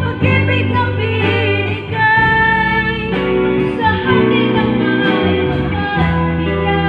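A woman singing a song through a microphone, with electric guitar accompaniment. Her melody wavers with vibrato, and she holds a long note about two seconds in.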